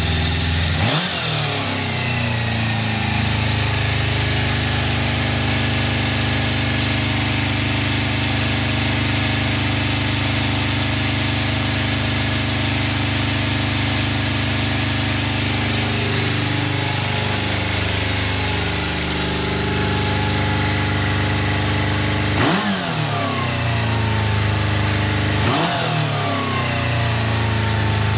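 Suzuki GSX400S Katana's inline-four engine idling steadily after an electric start, blipped three times: once about a second in and twice near the end, each a quick rise in revs falling back to idle.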